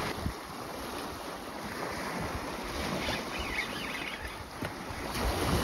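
Steady wind blowing across the microphone, with the sea washing on the shore beneath it.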